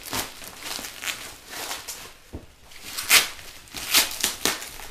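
Cardboard and plastic packaging being handled and pulled apart: scattered rustles and crackles, with a few sharper crackles or knocks about three and four seconds in.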